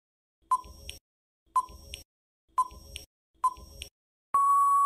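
Countdown-timer sound effect: four short ticks about a second apart, then a long steady beep about four and a half seconds in as the time runs out.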